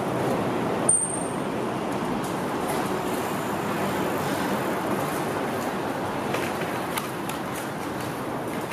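Steady urban background rumble of traffic and a distant train, with a brief high-pitched chirp about a second in.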